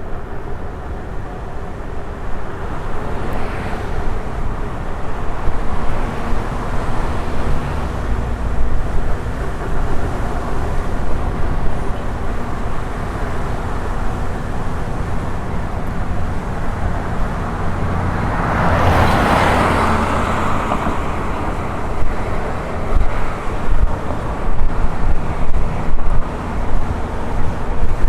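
Steady wind and road noise from riding an electric unicycle, gusting on the microphone, with a louder rushing swell about 19 seconds in.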